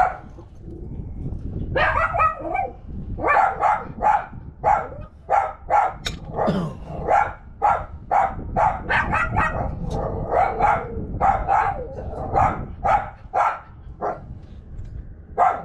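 A dog barking over and over, about two to three barks a second, starting about two seconds in and stopping shortly before the end.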